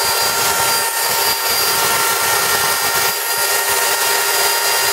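Craftsman electric chainsaw running free at full speed, not cutting: a steady, even motor whine with the chain spinning on the bar. It is a test run of a housing rebuilt with glue.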